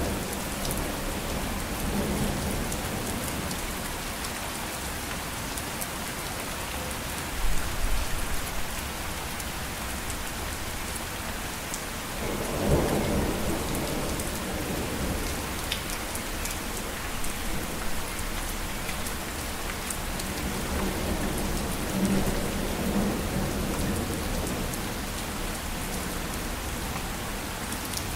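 Steady heavy rain falling, with low rolls of thunder swelling about 7 seconds in, again around 12 seconds and near 22 seconds.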